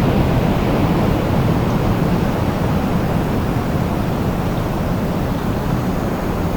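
Storm wind blowing steadily as a deep, constant rushing noise, with no thunderclap.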